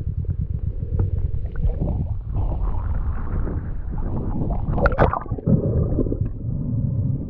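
Muffled underwater rumbling and gurgling of water moving around a diving camera, with a stronger gurgle about five seconds in.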